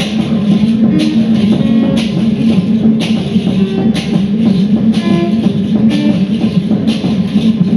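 Live band music: a dense, low sustained drone with a sharp hit about once a second and short scattered notes above it.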